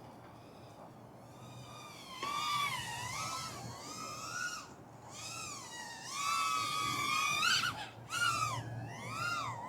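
Small Pavo 20 cinewhoop FPV drone's motors and propellers whining as the drone is flown through tricks, the pitch sweeping up and down as the throttle is punched and dropped. The whine starts about two seconds in and dips out briefly twice.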